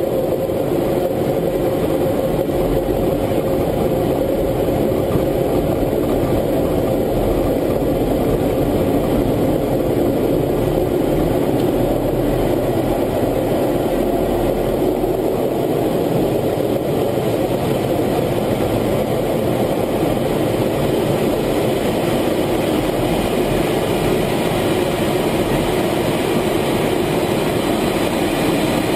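F-16 fighter jet's engine heard from inside the cockpit during the takeoff roll and lift-off: a steady, loud rumble with a faint hum.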